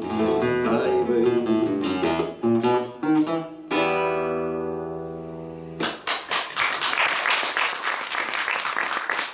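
Nylon-string classical guitar playing the closing bars of a song, ending about four seconds in on a final chord that rings for about two seconds and is then damped. Right after that, an audience applauds.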